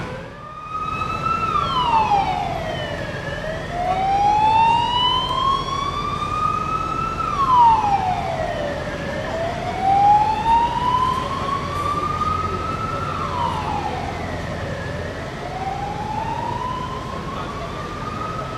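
Emergency vehicle siren on a slow wail. The pitch drops quickly, then climbs slowly back up, repeating about every six seconds, over a low steady rumble.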